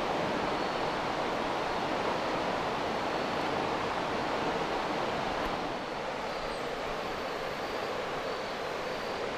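Steady rushing of a large spring gushing out of the foot of a rock cliff into a fast river run, dropping a little in level about six seconds in.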